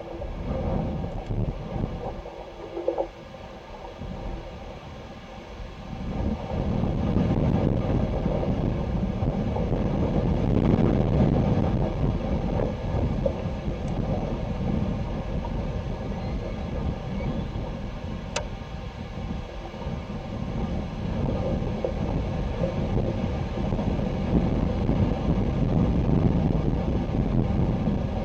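Wind buffeting the microphone: a low, gusting rumble that grows louder about six seconds in and stays strong.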